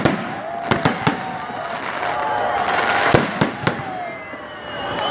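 Fireworks salute: sharp shell bursts, a cluster of three about a second in and another cluster about three seconds in, over a continuous crackle.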